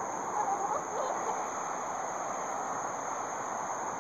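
A few soft, short clucks from free-range chickens pecking at feed, in the first second or so, over a steady outdoor hiss.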